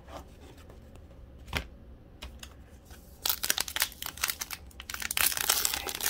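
Foil wrapper of a trading-card pack crinkling and tearing as it is pulled open, a dense crackle starting about three seconds in. One light knock comes about halfway before it.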